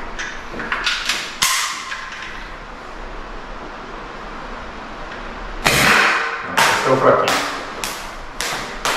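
Rossi Vesta .50 CO2-powered less-lethal pistol firing a single .50 steel ball: one loud, sharp pop with a short ringing tail about six seconds in. Light handling clicks come before it, and several shorter knocks follow.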